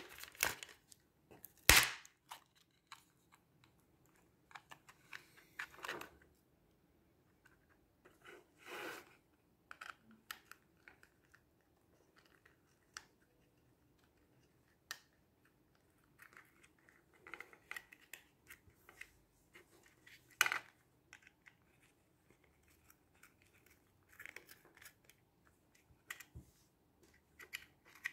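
Handling noise from taking apart a small plastic car monitor: scattered clicks and clacks of the plastic housing, with short rustling scrapes of parts and cables between quiet gaps. A sharp click about two seconds in is the loudest, with another about twenty seconds in.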